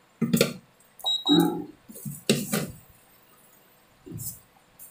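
Sugar poured from a plastic jar into a steel kadhai of halwa batter, in about four short pours with light clinks and knocks of the jar.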